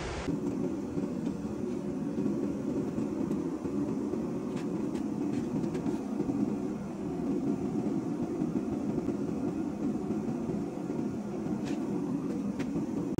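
Steady rushing noise of a forge running, with a few faint clinks of metal.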